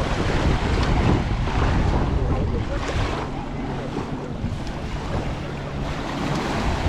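Surf washing on a sandy beach, with wind buffeting the microphone in low rumbles.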